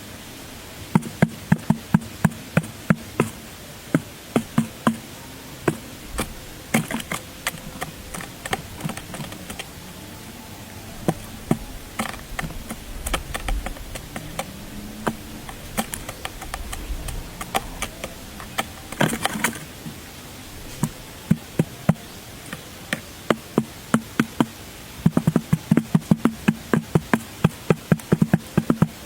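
Sharp taps and knocks, some in quick runs of several a second and others spaced out, over a steady hiss.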